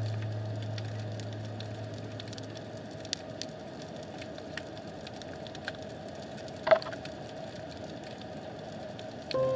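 Underwater ambience picked up by a submerged camera: a steady hum with scattered sharp clicks and crackles, and one louder click about two-thirds of the way through. A low drone fades away over the first two seconds.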